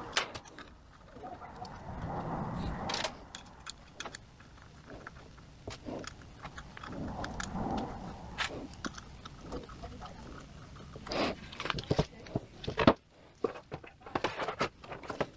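Irregular light clicks, taps and clatter of small metal transmission parts being handled and set down as a 42RE valve body is taken apart: valves, plugs and springs coming out. There are a couple of sharper knocks near the end.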